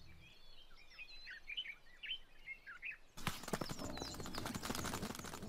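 Small birds chirping, a quick run of short, fast chirps for about three seconds. Then the sound changes abruptly to a crackling rustle full of small clicks, with a few faint chirps still audible.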